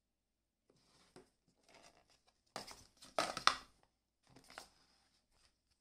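Packaging being handled: crinkling and rustling in a string of short bursts, loudest about three seconds in.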